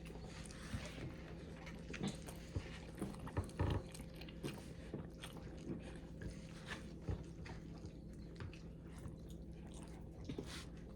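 Close-up mouth sounds of someone eating soft noodle-soup food: irregular wet chewing and lip smacks. A steady low hum runs underneath.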